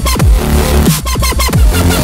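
Dubstep-style electronic music over a fast beat, with deep bass notes that slide down in pitch twice.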